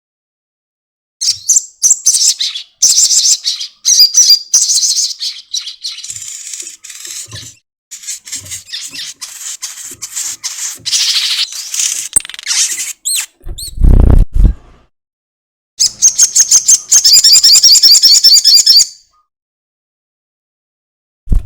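Sogon (sogok ontong) sunbird giving its rapid, high chattering 'ekek' calls in bursts, ending in a long, fast, even trill. About halfway through comes a loud, short low thump.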